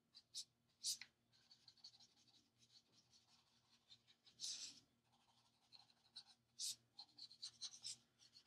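Faint strokes of an Ohuhu alcohol marker's tip across coloring-book paper: a few short scratches, one longer stroke about halfway through, and a quick run of small strokes near the end.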